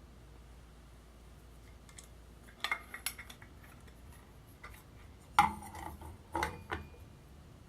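Hard parts being handled, clinking and rattling against each other in two short clusters, about two and a half seconds in and again, louder, about five and a half seconds in.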